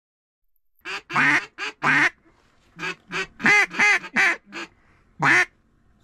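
A series of loud duck quacks beginning about a second in: four quick quacks, a short pause, then a longer run of about seven.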